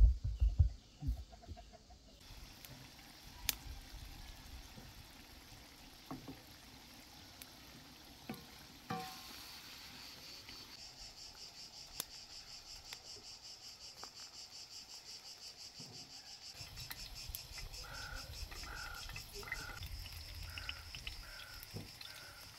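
Insects chirping steadily in a fast pulsing rhythm, with a bird calling over and over in short notes about twice a second near the end. A few soft thuds at the start come from fried eggplant slices being handled into a glass bowl.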